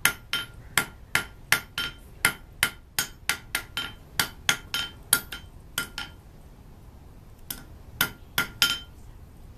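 Blacksmith's hand hammer striking a glowing bar on an anvil, drawing a point on its end. Quick ringing blows come about four a second, stop for about a second and a half, then a few more blows come near the end.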